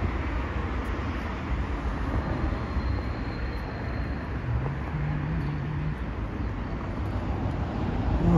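Steady outdoor city ambience: a low, even hum of distant road traffic.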